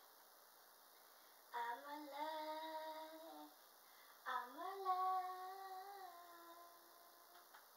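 A woman's voice singing two long held notes with no accompaniment. The first is shorter and rises slightly. The second, about a second later, glides up and then settles a little lower.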